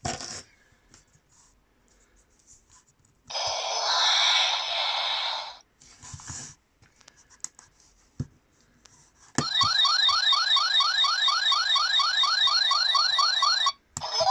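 Bandai Power Rangers Time Force Chrono Morpher toy playing its electronic sound effects through its small speaker, with button clicks between them. First comes a short burst of about two seconds, then a rapid run of rising chirps, about four or five a second, like an alarm, lasting some four seconds near the end.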